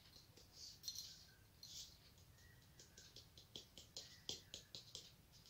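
Salt being shaken from a small salt shaker onto a plate of rice, faint: a couple of soft hissy shakes, then a quick run of light ticks in the second half.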